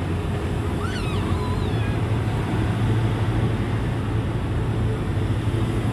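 Vehicle engine running steadily under load on a steep uphill climb, heard aboard with road and wind noise. Its low hum grows a little stronger about halfway through, and a few faint high chirps come about a second in.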